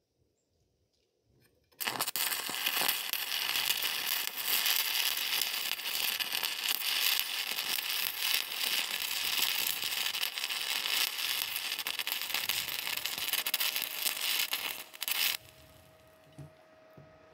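Stick welding arc crackling steadily as a rod burns along a steel joint. It strikes about two seconds in and stops suddenly about two seconds before the end.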